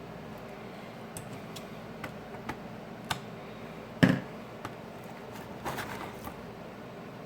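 Small clicks and taps from tools and phone parts being handled on a work surface during a smartphone repair, with one louder knock about four seconds in, over a steady low hum.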